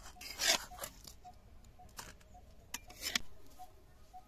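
A metal spoon scraping curry out of a cooking pan onto a steel plate: a handful of short scrapes and clinks.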